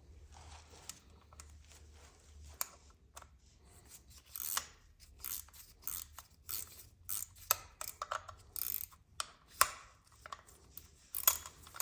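Ratcheting wrench clicking in short, irregular strokes from about four seconds in, as the bolts of a transmission filter cover are run in.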